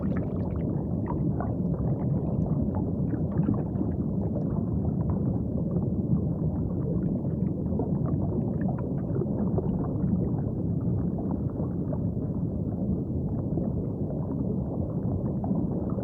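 Muffled underwater ambience of sinking beneath the sea: a steady deep rumble with faint crackling bubbles.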